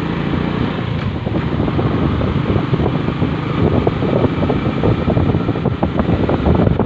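Motorcycle engine running as the bike rides along, with wind buffeting the microphone in a steady, rough rumble.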